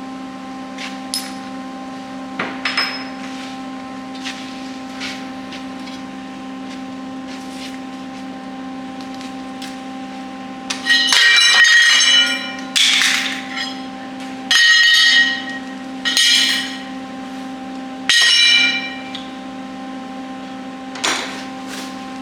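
Steel being worked on a welding-cart frame: a few small knocks, then about five loud, ringing metallic bursts of roughly a second each in the second half, over a steady hum.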